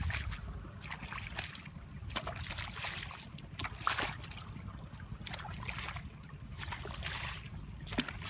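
Water splashing and sloshing in short, irregular bursts over a low rumble.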